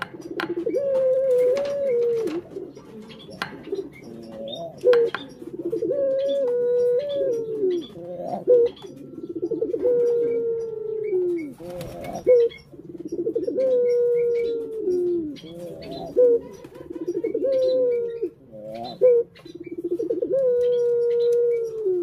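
Ringneck (Barbary) doves cooing over and over: each call is a held low note that breaks into a rolling, falling trill, repeated every two to three seconds.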